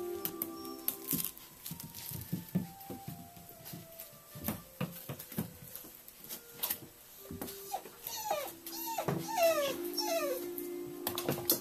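Four-week-old puppy whimpering: a quick run of about five short high whines, each falling in pitch, in the second half. Scattered light scratching and scrabbling come from the puppy climbing into a plastic dog bed.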